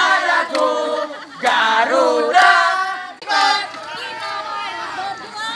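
A group of people singing and shouting together in unison, loud and strained, quieter from about three seconds in.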